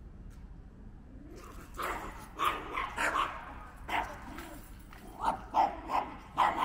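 A small dog barking, about ten short barks in quick runs, starting about two seconds in.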